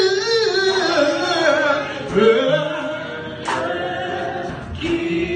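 Male vocal group singing a gospel song in harmony, a lead voice holding long notes with a wavering vibrato over the others.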